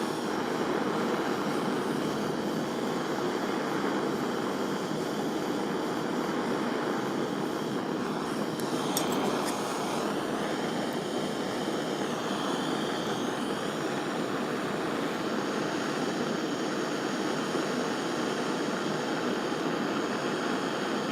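Gas soldering torch flame hissing steadily while it heats a silver setting and backplate to run hard solder into the seam. A few faint clicks come about nine seconds in.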